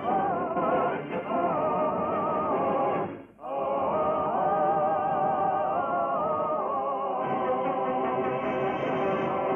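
Operatic-style singing with wide vibrato over orchestral accompaniment, with a brief break between phrases about three seconds in. The sound is narrow and thin, as on an old radio broadcast recording.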